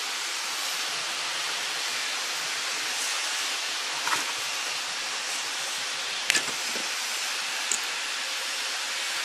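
A few small sharp clicks and taps as automotive blade fuses are pulled from an inverter's circuit board with pliers and set down on a wooden bench, the loudest about six seconds in, over a steady hiss.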